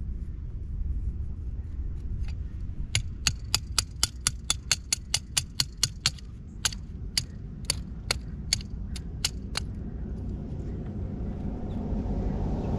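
Sharp metallic clicks from hand tools on the meter's pipe fittings in a rapid, even run, about four a second, slowing toward the end and then stopping, over a low steady rumble.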